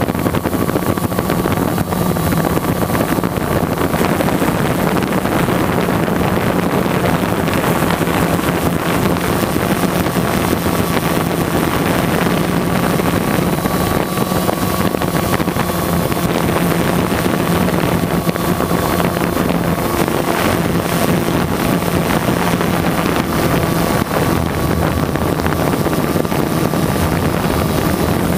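Multirotor drone's electric motors and propellers humming steadily at a constant pitch, picked up by the drone's own on-board camera, with some wind noise on the microphone.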